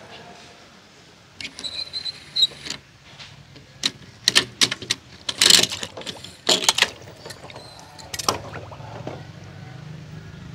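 Toy cars handled on a hard ledge: a rolling whirr of small toy wheels about a second and a half in, then a series of sharp clacks and knocks as the die-cast and plastic toys are bumped together and set down.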